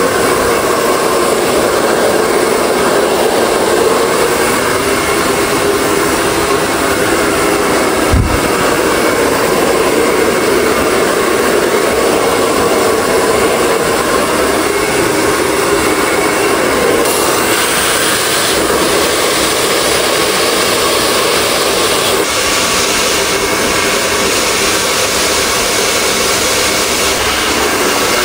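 Handheld hair dryer blowing steadily as hair is blow-dried, with a single brief knock about eight seconds in and the rush turning brighter a little past halfway.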